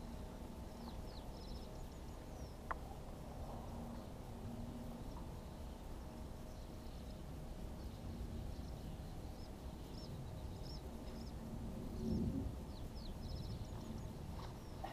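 Small birds chirping in short repeated phrases over a steady low rumble, with a single sharp click a few seconds in and a low thump about twelve seconds in.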